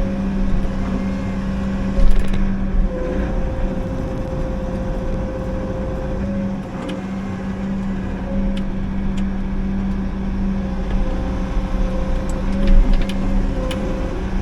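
Liugong 9051FZTS mini excavator's diesel engine running steadily under hydraulic load, with a held hydraulic whine over the engine hum. Scattered sharp clicks and knocks come through, the loudest about two seconds in.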